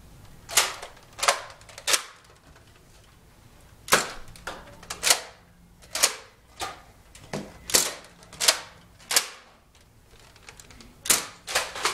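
Spring-powered Nerf dart blasters being primed and fired: a string of sharp plastic clacks, in clusters of two to four about half a second apart.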